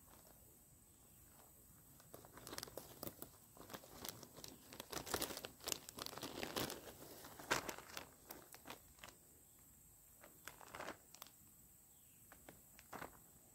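Irregular crisp crackling, tearing and crunching that starts about two seconds in and goes on in quick clusters until about eleven seconds in, with a few more near the end: chicken-of-the-woods mushroom being torn off a log by hand and packed into a plastic bag.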